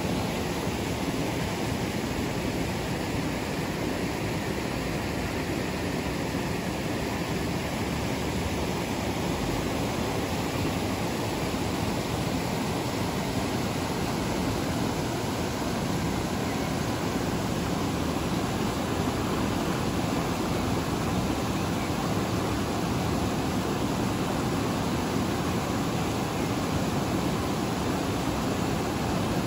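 Fast-flowing mountain river rushing over rocks and small rapids: a steady, full rush of water with no breaks.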